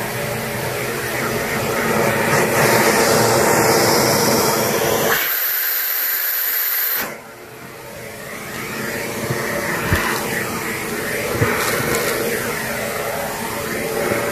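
ProTeam Super Coach backpack vacuum running with a steady rush of air as its hose sucks up stuffing and beans. About five seconds in, the low part of the sound drops away for a couple of seconds, leaving only a high hiss. It then comes back quieter and builds up again, with scattered clicks.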